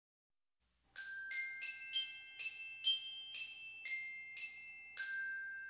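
A short tinkling melody of about ten struck, bell-like notes, played at a moderate pace, starting about a second in. It ends on a held note that is left ringing.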